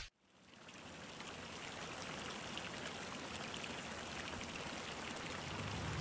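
A brief loud burst at the very start, then steady outdoor background noise, an even rushing hiss, fades in and slowly grows louder, with a low rumble building near the end.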